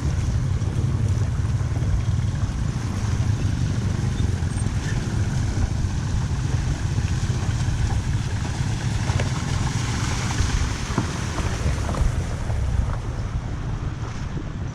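Steady rush of floodwater draining through a street culvert drain, with a deep rumble and a few faint ticks of debris.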